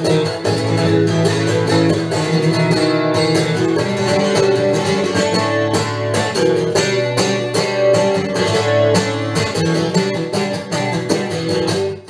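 Acoustic guitar strummed steadily in an instrumental break between sung verses, chords ringing with a regular strumming rhythm and no voice.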